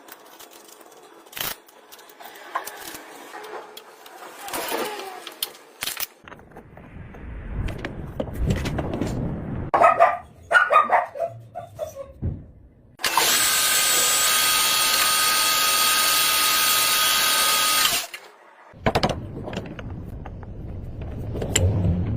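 Metal lathe machining: scattered clicks and metal scraping, then about five seconds of loud, harsh cutting noise with a steady whine. It stops suddenly and a lower machine hum follows.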